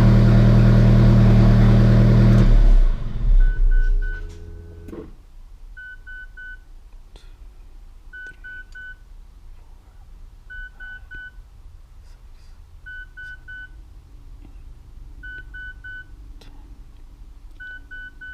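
Alfa Romeo 4C's turbocharged four-cylinder engine running, then shutting off about three seconds in as a clutch calibration step runs. After that, a quick triple electronic beep repeats about every two seconds.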